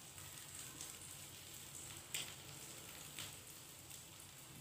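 Faint sizzle of hot oil in a frying pan, with a light click of a fork against the plate about two seconds in and a softer one about a second later.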